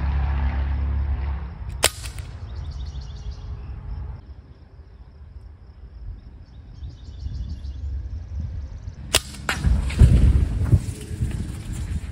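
Sig Sauer MCX Virtus .22 PCP air rifle firing: two sharp shots about seven seconds apart, the first about two seconds in. A low rumble runs under the first second or so.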